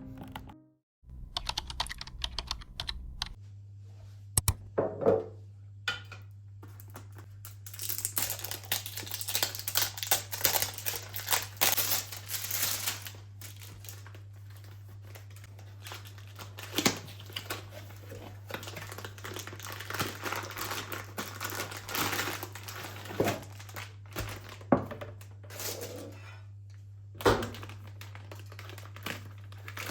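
Quick runs of small clicks and taps with a few louder knocks, over a steady low hum.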